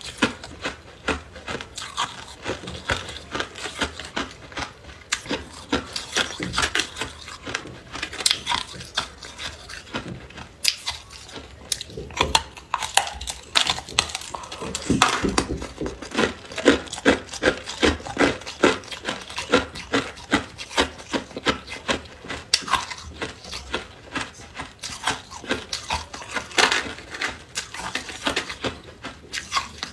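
A person biting and chewing hard ice close to the microphone: a steady run of crunches and cracks, with a quick even chewing rhythm through the middle.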